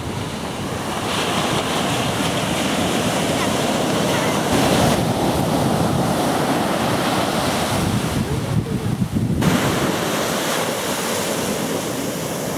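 Ocean surf breaking and washing up the beach, with wind buffeting the microphone; the sound shifts abruptly a few times.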